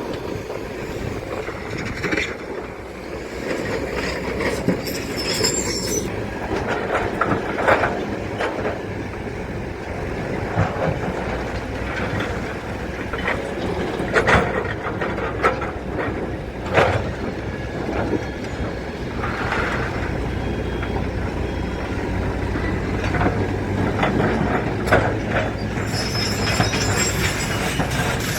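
Heavy earthmoving machinery at work: a diesel engine runs steadily under repeated metal clanks, knocks and squeals from the steel bucket, arm and tracks.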